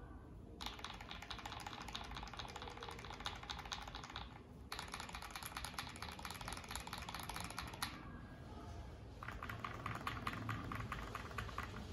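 Typing sound test on a mechanical keyboard fitted with lubed Akko CS Radiant Red linear switches: dense runs of rapid keystroke clacks, broken by two short pauses, about five and eight seconds in.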